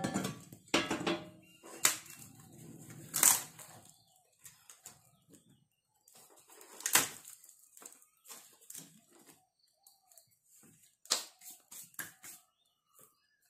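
Split firewood sticks knocking and clattering as they are set into the firebox of a wood-fired stove. The knocks come irregularly, with the loudest about three seconds in and again about seven seconds in, and a quick cluster near the end.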